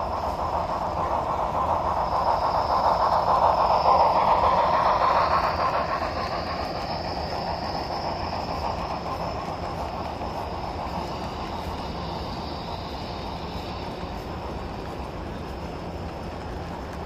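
HO scale model train rolling along the layout's track, its wheels running on the rails. It grows louder to a peak about four seconds in, then slowly fades as it moves away, with a faint high whine.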